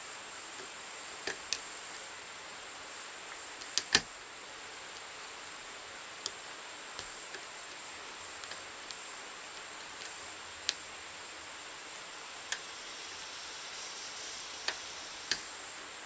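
Scattered sharp metallic clicks of a lock pick and tension wrench working the pins of a Viro five-pin lock with security pins, about ten in all at uneven intervals, the loudest a close pair about four seconds in, over a steady faint hiss.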